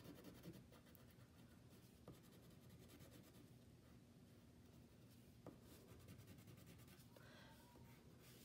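Faint scratching of a wax crayon rubbed over paper in short strokes, going over a shape's outline.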